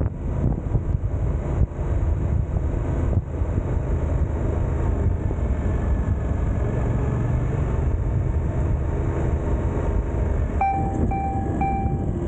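Suzuki GSX-8S's parallel-twin engine running steadily in second gear at low road speed. Near the end, three short electronic beeps.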